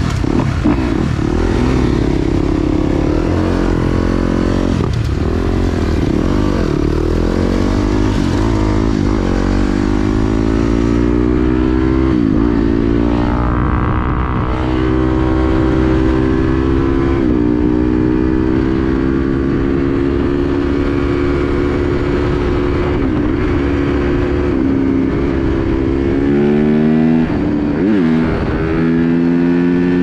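Yamaha YZ dirt bike engine pulling away from low revs and accelerating through the gears. Its pitch climbs and drops back at each upshift, several times.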